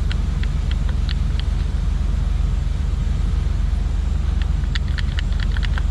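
Light, scattered clicks and taps of small hard parts being handled, a cluster in the first second or so and another near the end, over a steady low rumble.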